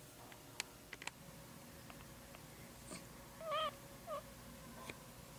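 Newborn miniature dachshund puppy squeaking: a short wavering squeak about three and a half seconds in, then a brief falling one just after. A few faint clicks come earlier.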